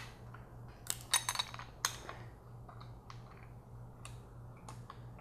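Metal clinks of a wrench and triple-square bit working on a sway bar end link's 16 mm nut: a few sharp clicks about one to two seconds in, then fainter scattered ticks.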